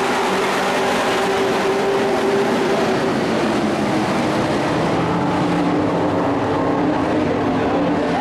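Engines of a field of dirt-track race pickup trucks racing under green, several running together at once, their pitches shifting slightly as the trucks pass.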